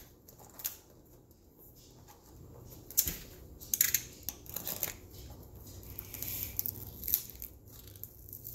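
Plastic wrap on a box being cut with a utility knife and torn off, with intermittent crinkling and scraping and a few sharp clicks. The wrapping is tight and hard to get open.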